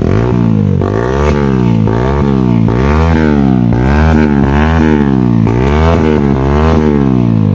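Single-cylinder engine of a TVS Apache RTR 160 4V motorcycle revved in quick repeated throttle blips, about two a second, through an SC Project aftermarket exhaust. Very loud.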